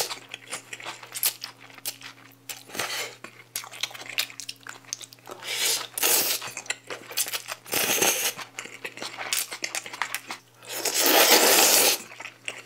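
Noodles slurped loudly in several bursts, the longest and loudest near the end, with a fork and chopsticks clicking against a bowl in between.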